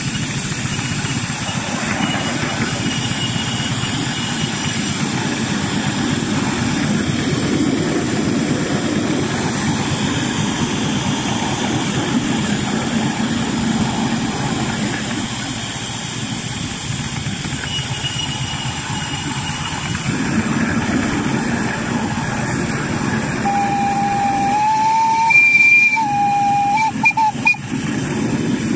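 Ride-on miniature live-steam locomotive running along its track, a steady rumble of wheels and exhaust. Near the end its steam whistle sounds twice, a held note that steps briefly higher, then a shorter second blast.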